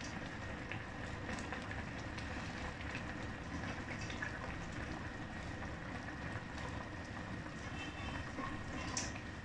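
Braised grass carp stew simmering in a wok over a gas flame: a steady rumbling hiss, with a few faint light ticks as the noodles go in.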